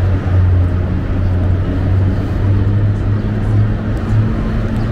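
Busy city street traffic noise, dominated by a steady low engine hum over an even wash of road noise.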